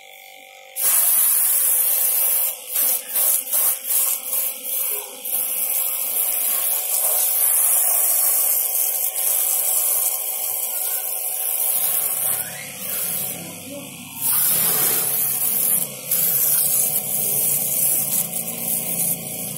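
Homemade pressure washer's water jet spraying against a motorcycle's frame and footrest: a loud hiss that starts about a second in and cuts off and resumes several times, over the steady hum of the electric water pump.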